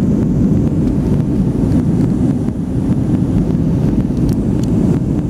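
Steady, low cabin noise of a jet airliner in flight, engine and airflow noise heard from a window seat, with a couple of faint ticks near the end.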